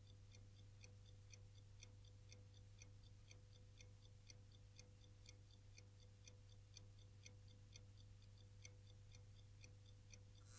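Faint, steady ticking of a clock, even regular ticks over a low steady hum.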